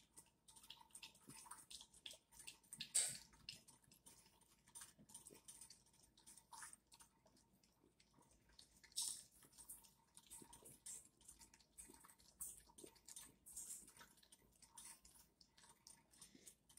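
A French bulldog lapping water from a bowl: a faint, uneven run of wet tongue-laps and small splashes, with a louder slurp about 3 seconds in and another about 9 seconds in.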